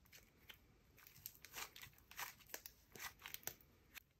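Butter slime squeezed and folded between the fingers, giving faint irregular clicks and crackles as it squishes, thicker from about a second in.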